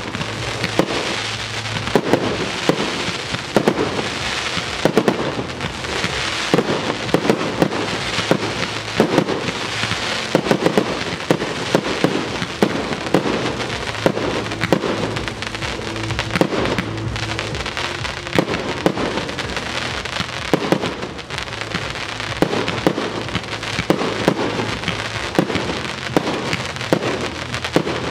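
Fireworks going off in quick succession: a continuous stream of pops and bangs from bursting aerial shells, with crackling between them.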